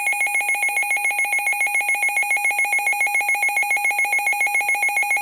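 Midland WR-400 weather radio's built-in alert alarm: a loud, rapidly pulsing electronic warble, signalling that a warning, here a flood warning, has been received.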